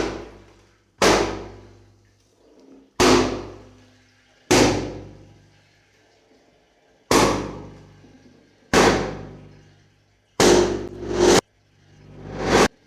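A series of balloon pops, about seven at irregular intervals, each a sharp bang with a ringing tail that fades over about a second; a couple instead swell up and cut off abruptly.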